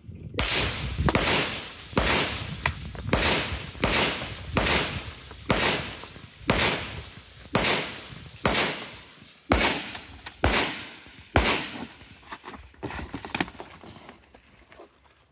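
A rifle firing a string of about fourteen shots, roughly one a second, each sharp crack trailing off in a short echo. A few fainter cracks follow, then the firing pauses near the end.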